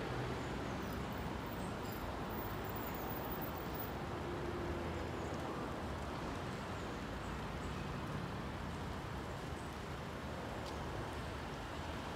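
Steady low rumble of distant road traffic, an even urban background hum with no rhythm or sudden events.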